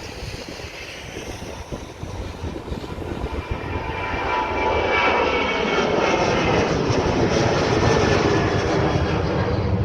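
Boeing 737 jet engines at takeoff power just after rotation, a loud steady roar carrying a whine of tones that shift in pitch. It grows louder about four seconds in as the aircraft passes closer.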